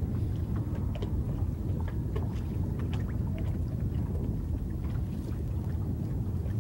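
Choppy water lapping and slapping against a small boat's hull, over a steady low wind rumble on the microphone, with scattered light ticks and splashes.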